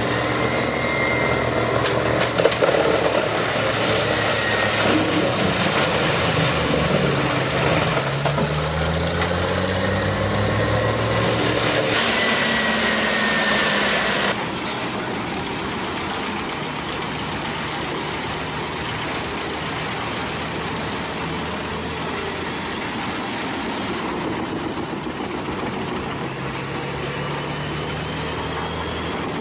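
Wood chipper running: loud engine and machine noise, with the engine's pitch dipping and recovering in the middle. About fourteen seconds in it cuts suddenly to a quieter, steady engine running.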